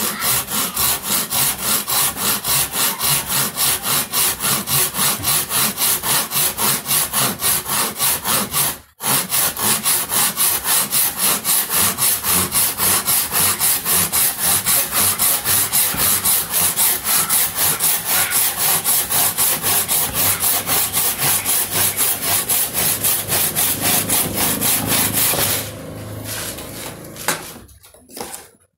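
Crosscut hand saw cutting through wood in a fast, even rhythm of back-and-forth strokes. The sawing breaks off for a moment about a third of the way in, then runs on until it tails off and stops, followed by a single knock near the end.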